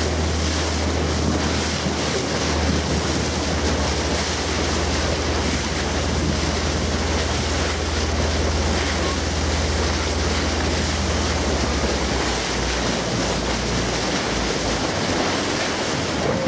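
Motor tour boat under way through waves: heavy wind buffeting the microphone over rushing, splashing sea water. Under it runs a steady low engine drone that breaks up about twelve seconds in.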